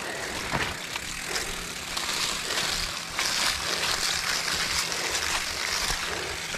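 Mountain bike riding over a rough, rutted dirt trail: tyres rolling on dirt, with frame and chain rattling and scattered knocks.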